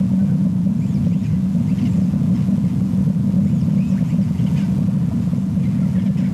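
Steady low rumble with no change in level, with faint high chirps of small birds now and then.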